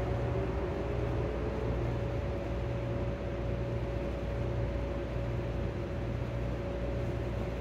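Steady background hum and hiss in a large hall, with a faint constant tone and a low hum that swells and drops about once a second.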